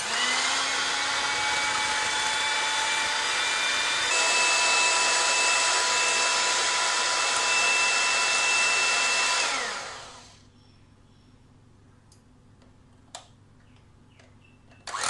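Electric hand mixer beating an egg: the motor whirs up at switch-on, steps up to a higher speed about four seconds in, then is switched off about nine and a half seconds in and winds down to a stop.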